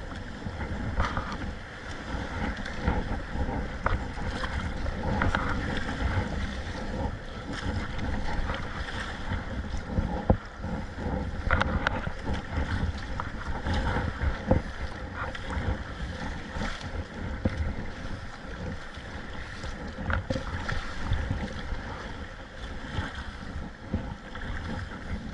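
Sea water sloshing and splashing around a kayak among waves, with wind rumbling on the microphone. A few short sharper splashes or knocks stand out now and then.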